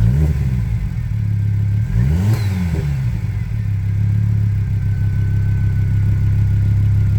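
Ford ST engine idling after a cylinder head rebuild, blipped twice: a short rev at the start and a bigger one about two seconds in, each falling straight back to idle. A faint whistle falls slowly in pitch after the second rev.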